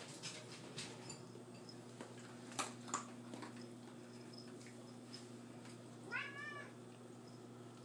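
A kitten gives one short, high meow about six seconds in. Earlier come two sharp clicks about half a second apart, over a low steady hum.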